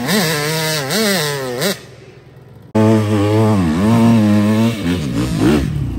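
Dirt bike engine revving up and down with the throttle as it climbs a sandy slope. The sound drops away suddenly after about two seconds, then picks up about a second later with another stretch of revving.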